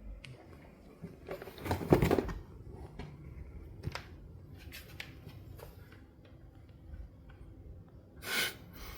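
Faint rustling and light knocks, with a louder rustle about two seconds in and a shorter one near the end.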